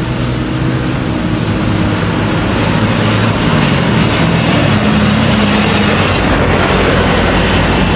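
Diesel locomotive running past, a steady low engine drone over rolling noise, growing a little louder over the first few seconds.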